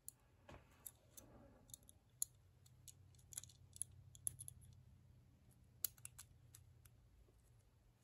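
Faint, irregular light clicks from a brass four-wheel Master Lock 175 combination padlock as its number wheels are turned notch by notch and a thin steel feeler-gauge decoder knife probes behind the second wheel, feeling for the gate of the combination.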